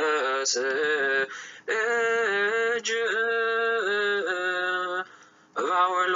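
A man chanting Ethiopian Orthodox liturgical chant in long, wavering held notes. It breaks off briefly about a second and a half in and again near the end.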